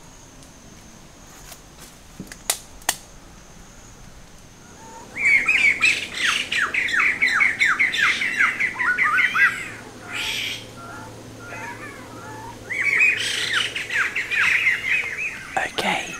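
A forest bird calling in two long runs of rapid, repeated falling notes, several a second, starting about five seconds in and again near the end.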